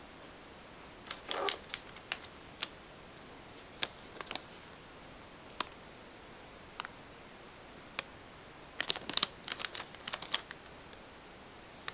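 Scattered sharp clicks and taps of small hard objects being handled, bunched in a short flurry about a second in and a longer one about three quarters of the way through, with single clicks between.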